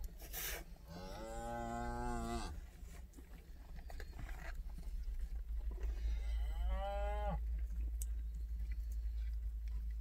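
Cattle mooing twice, a long call about a second in and a shorter one near seven seconds, over the steady low rumble of the vehicle heard from inside the cab.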